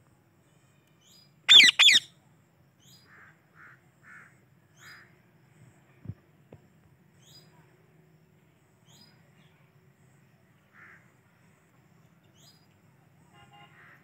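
Yellow (lutino) Indian ringneck parakeet giving two loud, harsh squawks in quick succession about a second and a half in. Faint high chirps from another bird repeat in the background, with a single soft knock near the middle.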